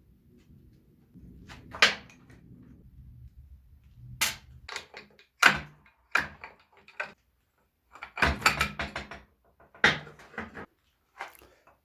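Metal parts and hand tools clanking and knocking, one sharp strike after another with a busy cluster about eight seconds in, as a farm sprayer's gearbox is taken apart.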